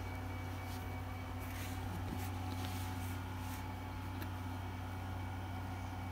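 Steady low electric hum of a stand fan running, with a few faint soft rustles in the first half.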